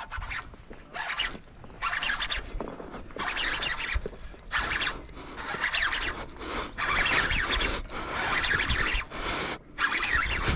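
Baitcasting reel being cranked in short spurts, a scratchy whirring with brief pauses between turns, as the line and lure are retrieved.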